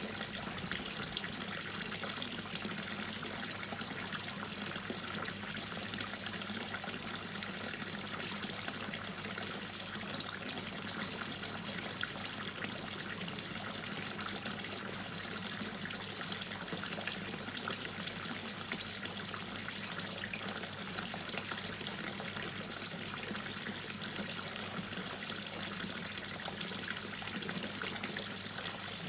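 Water dripping and trickling steadily: a dense, even patter of many small drips and splashes.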